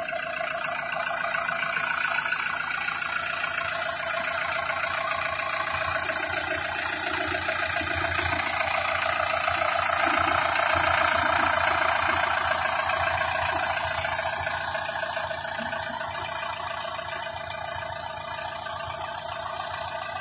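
Sonalika Tiger tractor's diesel engine idling steadily, a little louder around the middle.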